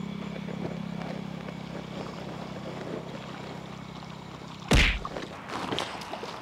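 A fishing rod swung hard in a cast: one sharp swish about three-quarters of the way through, followed by a few light knocks. Under it a steady low hum that fades out about halfway.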